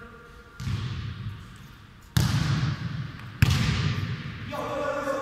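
A football being struck three times in a futnet rally, the hits about a second and a half apart, each ringing out in the echo of a large hall. A player's voice calls out near the end.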